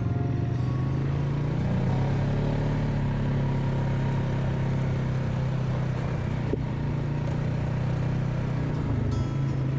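ATV engine running at a steady cruising speed, a constant low drone with little change in pitch.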